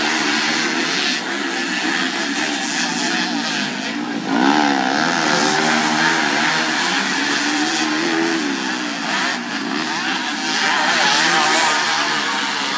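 Several dirt bike engines revving hard and easing off as they race through the corners, their pitches rising and falling over one another, with one loud rev swelling about four seconds in.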